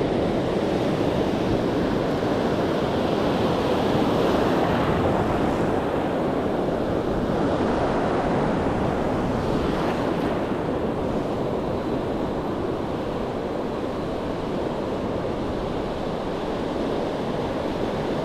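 Ocean surf breaking and washing ashore: a steady rush of waves that swells about four seconds in and again around ten seconds.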